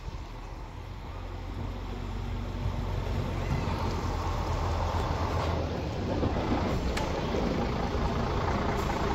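A motor vehicle's engine running, growing louder over the first few seconds, then holding steady until it cuts off suddenly near the end.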